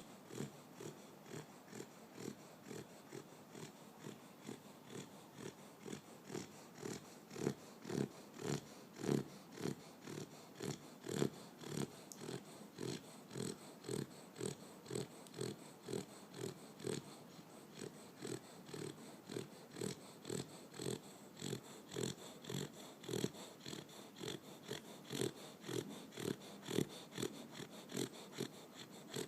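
A Boxer dog snoring in its sleep: short, regular snorting snores, about two a second, keeping up without a break.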